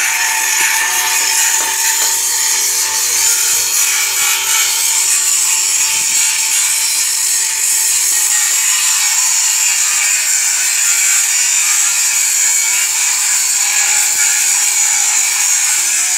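Steady, harsh noise of a power tool working steel, with a steady motor hum that drops in pitch near the end as it winds down.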